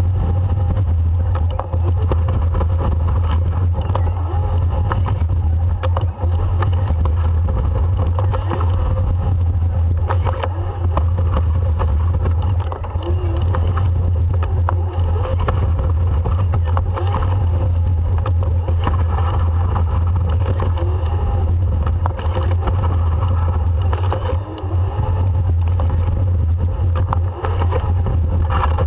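Plow truck's engine and road noise heard from inside the cab: a steady deep rumble with scattered light clicks and rattles.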